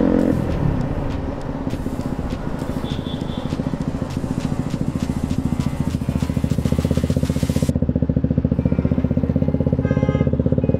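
Yamaha R15 V4's 155 cc single-cylinder engine slowing from a ride and settling into an even, pulsing low-rev run as the bike comes to a stop. Wind hiss drops away suddenly about eight seconds in. A short high-pitched tone sounds near the end.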